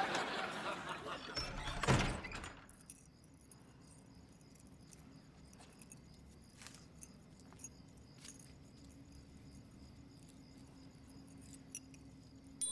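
A loud rush of noise for about the first two seconds, ending in a thump. Then a quiet stretch with a faint steady hum and a few light metallic clinks from a pendant necklace's chain being handled.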